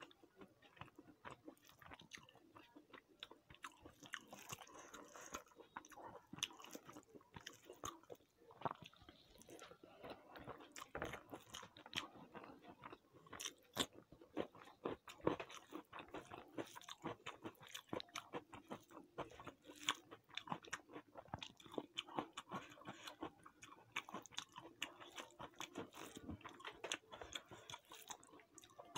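Close-up chewing and biting of food, dense with small crunches and wet mouth clicks, with a few louder crunches about halfway through.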